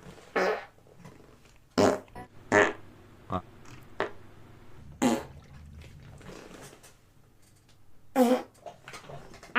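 A man farting: a string of short separate farts, about seven bursts spread over several seconds with quiet gaps between.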